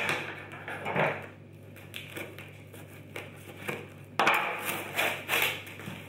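Cardboard box being opened by hand: sharp knocks and small scrapes on the box, then, about four seconds in, a loud ripping stretch of about a second and a half as packing tape and cardboard are torn open.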